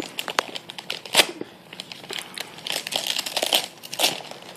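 Gift wrapping paper crinkling and crackling in irregular bursts as a toddler's hands pull at a wrapped present.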